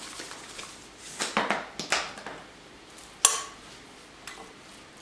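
Metal spoon stirring raw chicken cubes in a glass bowl: soft squelching scrapes and light clinks against the glass, with one sharp knock a little after three seconds in.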